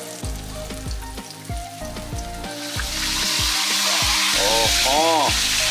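Whole floured snapper deep-frying in hot oil in a pan: a steady sizzle that grows louder about halfway through. Background music with a bass beat and a melody plays over it.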